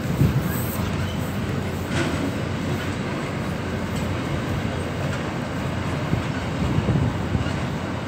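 Container wagons of a freight train rolling past: a steady rumble of steel wheels on rail, with one sharp click about two seconds in.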